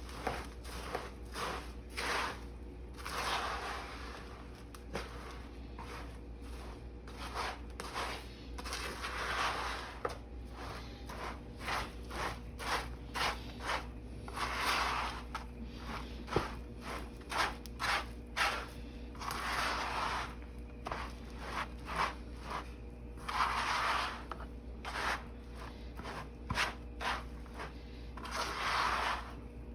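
Spatula stirring Rice Krispies cereal through sticky melted marshmallow in a large mixing bowl: repeated scraping, rubbing strokes about every one to two seconds, with small crackly clicks of the cereal between them.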